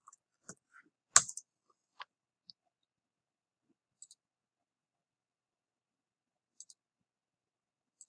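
Sparse clicks of a computer mouse and keyboard: short, sharp single clicks a second or more apart, with a louder double click about a second in.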